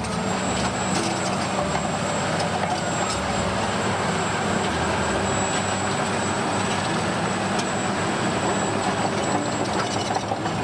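Toy rock-breaker bulldozer running, giving a steady engine-like rumble with a rough, hissing edge.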